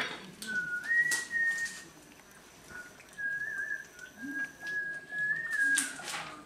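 High, thin whistling in a string of short held notes that step up and down in pitch, with brief pauses between them. A couple of short scrapes or knocks, about a second in and near the end.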